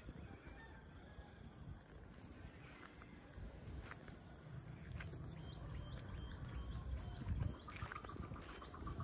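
Wind buffeting the microphone with a low, uneven rumble that grows stronger near the end, over a faint steady high-pitched insect drone.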